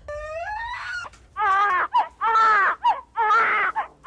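A rooster crowing: one rising call in the first second, then a run of loud, drawn-out, strained calls.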